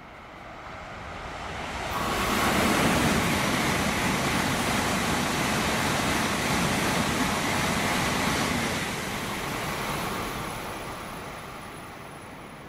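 Shinkansen train passing at high speed: a rushing noise builds over about two seconds, holds loud and steady for several seconds, then fades away.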